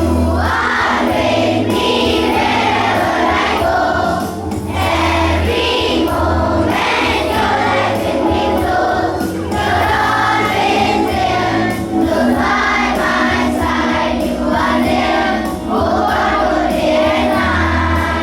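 A choir singing a song with instrumental accompaniment and a steady low bass.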